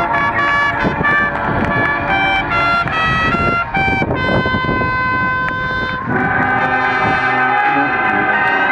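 Marching band brass playing a quick stepping run of notes, then holding a sustained chord; about six seconds in the full band comes in fuller and louder, with low brass underneath.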